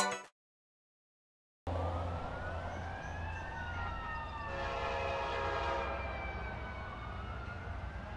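After a second and a half of silence, a distant emergency-vehicle siren wails, its pitch slowly rising and falling, over steady outdoor background noise. Midway, a horn sounds for about a second and a half.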